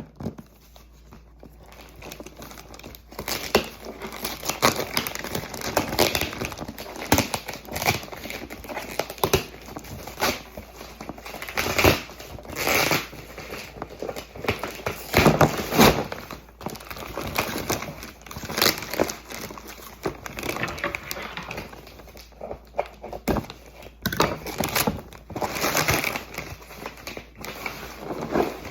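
Toy packaging being opened by hand: irregular crinkling and crackling of wrapping with occasional tearing, in an unboxing of a Mini Brands supermarket playset.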